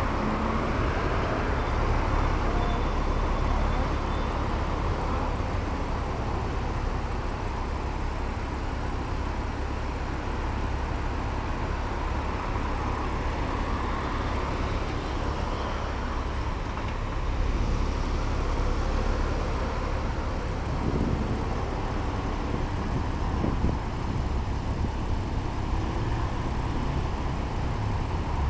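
Steady road traffic noise at an intersection, with cars idling at a red light and no revving.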